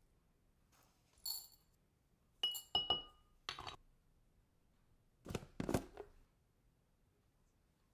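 A few sharp clinks with a short ringing tone as a metal measuring spoon and beeswax pellets tap against a glass bowl, then two duller knocks about five seconds in as a plastic tub of coconut oil is handled and its lid taken off.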